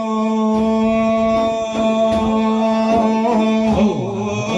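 Sufi dhikr music: one long note held level in pitch for nearly four seconds, then moving into a new phrase near the end, over drum beats about twice a second.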